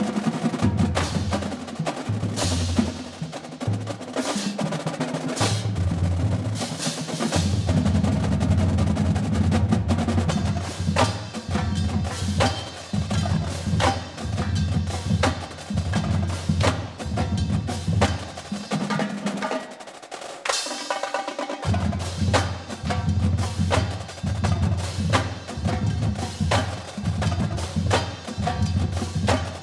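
Marching drumline playing: sparkle-finish snare drums with dense, rapid stick strokes over the pitched notes of Yamaha marching bass drums. About twenty seconds in, the bass drums drop out for a second or two while the snares keep going, then come back in.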